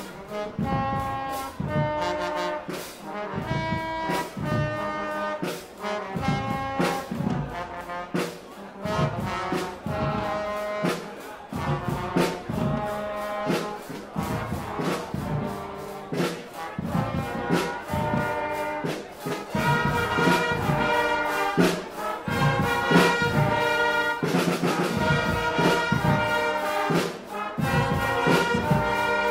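Guggenmusik carnival band playing live: trumpets and trombones over bass drums and snare drums keeping a regular beat. The band gets louder and fuller about two-thirds of the way through.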